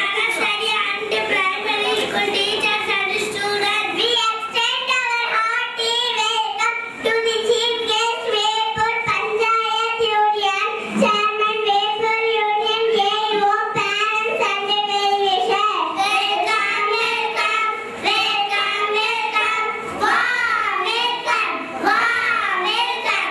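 Three young girls singing together in unison into microphones, a steady melodic line with wavering held notes.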